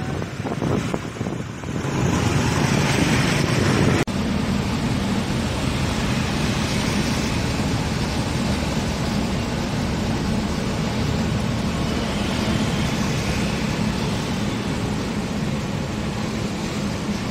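Steady road noise and engine drone heard from inside a moving car driving close beside heavy trucks. There is a brief dropout about four seconds in.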